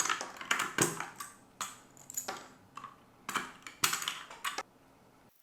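Plastic keycaps being pulled off a mechanical keyboard's switches: a run of irregular sharp plastic clicks and clacks, about one or two a second, stopping shortly before the end.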